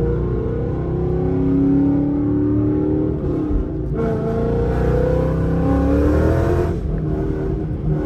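Ford Mustang's 5.0 V8 heard from the cabin, accelerating hard with the engine note climbing. After a break about three seconds in, it pulls hard again with a louder, raspier note, then lets off sharply near the end.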